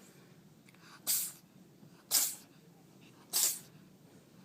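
A cat sneezing three times in a row, about a second apart, each sneeze short and sharp.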